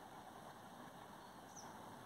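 Near silence: faint open-air rural ambience, with one brief, faint high chirp about one and a half seconds in.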